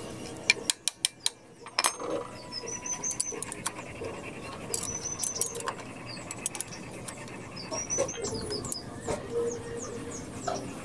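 Several quick metallic clicks as the oil drain bolt comes out, then engine oil draining from a Suzuki Raider R150 into a catch container, with birds chirping in the background.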